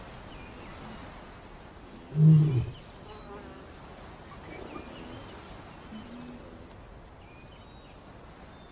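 A lion gives one short, low growl about two seconds in, over a faint steady wild background with scattered high chirps.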